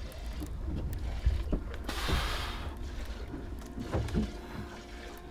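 Boat on open water: a steady low rumble with a faint steady hum, scattered small ticks, and a brief hissing wash about two seconds in.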